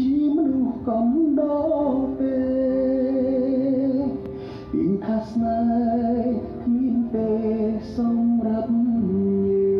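Background music: a song with a singing voice carrying long held notes over accompaniment.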